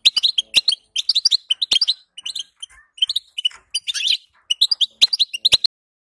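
European goldfinch chattering twitter: a fast run of short, high chirps with sharp clicks among them, stopping abruptly near the end.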